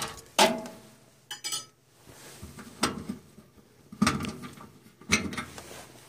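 Microwave turntable parts, the roller ring and centre hub, being lifted out of the oven cavity and set down: about five sharp clinks and knocks, each ringing briefly, with a short rattle a little over a second in.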